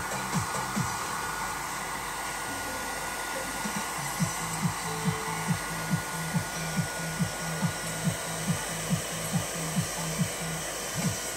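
Handheld hair dryer blowing steadily, a steady hiss with a thin whine, as it dries a small dog's fur. Under it, background music with a low, steady beat of a little over two per second, which drops out about a second in and comes back about four seconds in.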